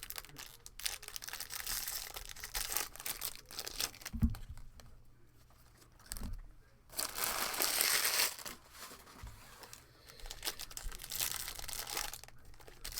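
Foil trading-card pack wrappers crinkling and tearing as packs are opened and cards handled, with a denser, louder stretch of crinkling in the middle and a soft thump about four seconds in.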